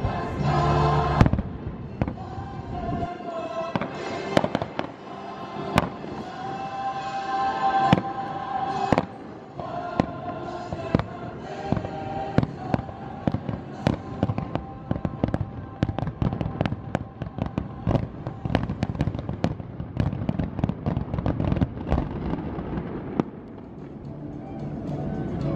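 Aerial fireworks shells bursting in a stream of sharp bangs and crackles that come faster and thicker through the second half, over the show's accompanying music.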